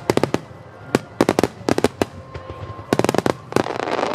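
Starmine fireworks barrage: aerial shells bursting in quick clusters of sharp bangs, with a crackling spread near the end.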